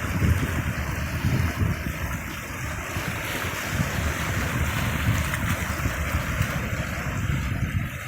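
Wind buffeting the microphone in uneven low gusts over the steady hiss of Mediterranean sea waves washing.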